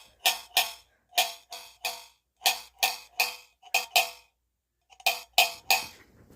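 A metal can giving about thirteen sharp, ringing pings in irregular groups of two and three, each with a short pitched ring after it.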